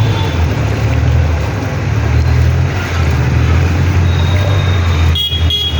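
Street traffic noise: a steady low rumble of vehicle engines, briefly dipping about five seconds in.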